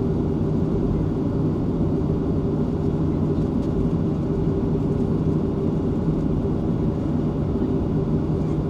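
Inside the cabin of a Boeing 737-500 on the ground, its CFM56-3 turbofan engines run at low power. The sound is a steady rumble with a low hum.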